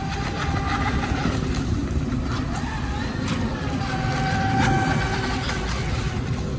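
Delta Force Mini Storm RC speedboat's 3400KV brushless electric motor whining at speed, its pitch drifting up and down as it runs across the water. A few short ticks come in the middle, over a steady low rumble of background noise.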